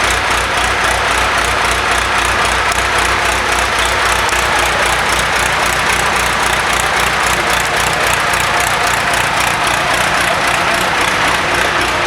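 Vermeer BC1230 wood chipper's engine running steadily with an even, low pulsing beat.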